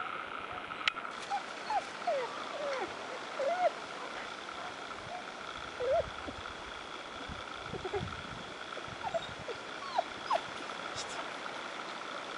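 Evening outdoor chorus of night creatures: a steady high-pitched drone, with short squeaky calls that rise and fall scattered throughout.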